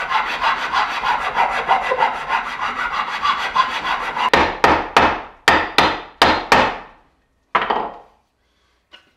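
Hand sanding of a wooden hatchet handle, shaping its top end to fit the hatchet head's eye. Quick back-and-forth scrubbing for about four seconds, then about seven separate long strokes, roughly three a second, and one last stroke a second later.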